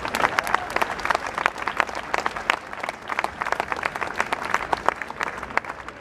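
Crowd applauding: many hands clapping together, thinning out near the end.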